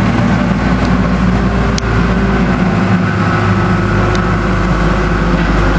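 A dozer's diesel engine running steadily while it clears snow, with two short sharp clicks partway through.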